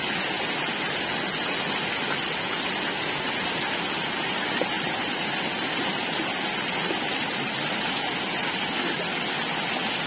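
Rocky forest stream rushing over boulders and small cascades: a steady, even rush of running water.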